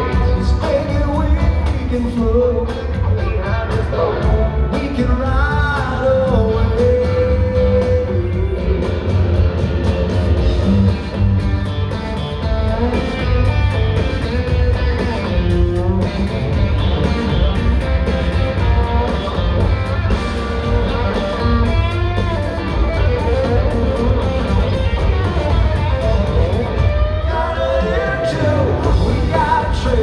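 A live country-rock band playing a song: electric guitars, bass and drums under a male lead vocal, heard loud and continuous from the audience in an arena.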